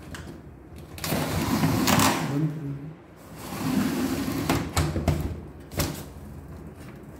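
PVC folding (accordion) door sliding along its track as it is folded open and pushed closed again, its panels rubbing, with a few sharp clicks from the door and its latch near the end.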